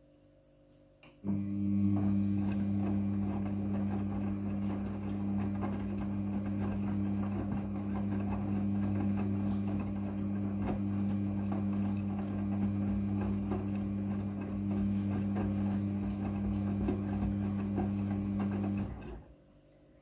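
Midea front-loading washing machine tumbling a load of wet towels in its wash cycle: the drum motor starts about a second in with a steady hum, the towels churn and rustle as the drum turns, and it stops near the end.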